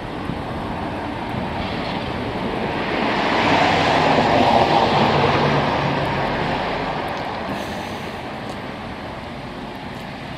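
A vehicle passing by: its noise builds to a peak about four to five seconds in, with a low engine hum underneath, then fades away.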